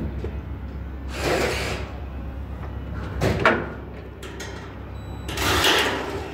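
Galvanized steel studs scraping metal on metal as they are slid and set into the top track, three short scrapes with a steady low hum underneath.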